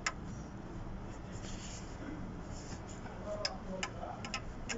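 Faint steady background hum with a few light clicks and taps, most of them between about three and a half and four and a half seconds in.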